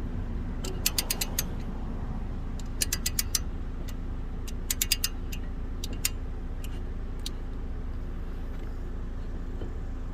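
Ratcheting brake caliper tool clicking as it is worked back and forth, spreading to push the caliper piston back. The clicks come in quick runs of four or five, then singly later on, over a steady low hum.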